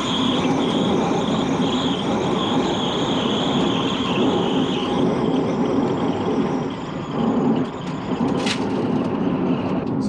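Rimac Nevera electric hypercar, driven by four electric motors, on the move, heard from inside the cabin: steady road and tyre noise with a high whine that fades out about halfway through. A single sharp click comes near the end.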